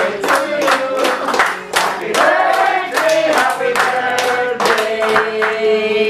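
A small group singing a birthday song together while clapping along in time, about three claps a second, ending on a long held note.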